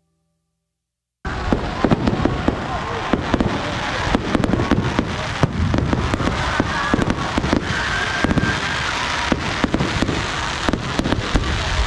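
Fireworks display: a dense run of bangs and crackling that starts suddenly about a second in and keeps going, with crowd voices underneath.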